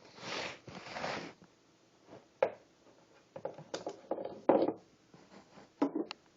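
Pistol magazines being released and pulled from the grips of compact 9mm handguns: a handful of sharp clicks and clacks with some scraping of metal and polymer being handled.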